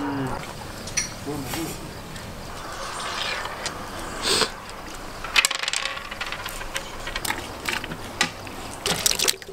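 Scattered light clicks and clinks from food being handled: garlic cloves broken off the head onto a wooden board, then a plate of meat being moved about. The clicks come thickest in the second half, with faint voices behind.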